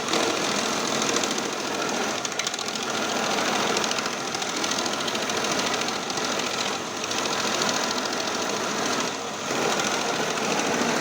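Cassava shredding machine running, a steady dense mechanical clatter with a fast even rhythm, briefly quieter twice in the second half.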